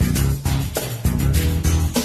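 Instrumental karaoke backing music, with sustained low notes and a steady beat.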